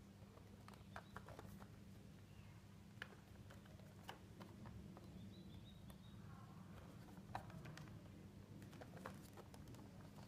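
Faint, scattered clicks and taps of fingers handling and turning a cardboard Funko Pop box with a clear plastic window, over a low steady hum.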